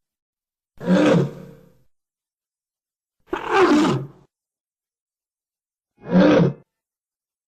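Three separate monster roars from the Showa-era Manda kaiju sound effects, each under a second long with a falling pitch, the first trailing off, the last the shortest, with silence between them.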